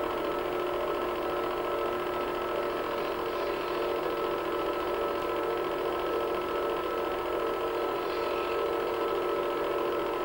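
Film projector running: a steady whir of motor and fan with several constant hum tones, unchanging throughout.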